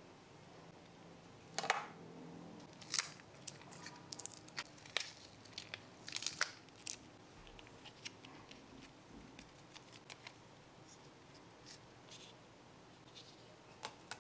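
Small thin plastic clamshell container being handled and pried open, crackling and clicking in sharp little snaps, busiest in the first half and sparse after.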